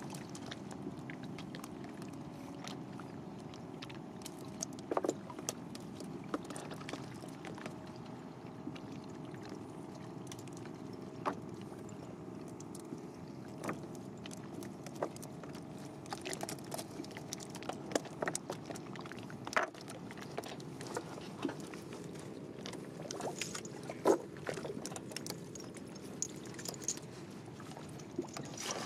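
Small boat travelling on the river: a steady low hum with light knocks and clicks scattered through, the loudest about three quarters of the way in.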